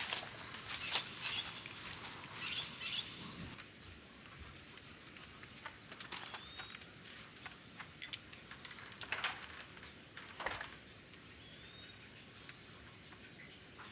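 Rustling and crackling for the first three seconds or so as bunches of green bananas are carried and handled. After that, quiet outdoor ambience with a steady high thin whine, two short bird chirps, and a few sharp clicks about eight seconds in.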